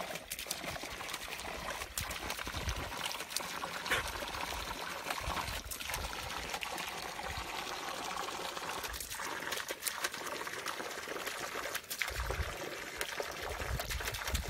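Water pouring and trickling steadily from a pipe into a hollowed-log fountain trough.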